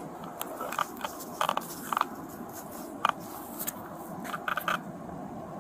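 Irregular sharp clicks and crackles, about a dozen scattered through the few seconds over a faint background hiss: handling noise of a body-worn camera's microphone rubbing against the wearer's uniform.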